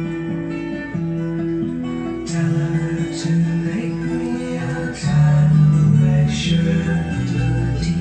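Guitar music with plucked and strummed notes over a moving bass line, played from a vinyl record on an Audio Reflex DD-1979 turntable.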